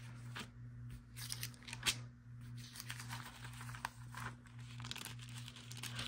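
Thin 28 GSM Bible paper pages being turned by hand: soft, scattered rustles and crinkles of the page. A faint steady low hum sits underneath.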